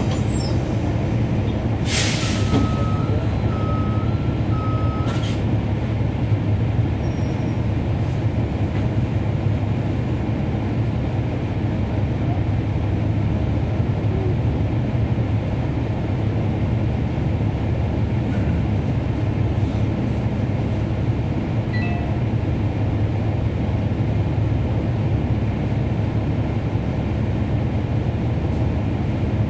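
Bus's Cummins ISL9 diesel engine running steadily, heard from on board. About two seconds in comes a short, sharp burst of air hiss, followed by an intermittent beeping tone for about three seconds that ends with a second brief hiss.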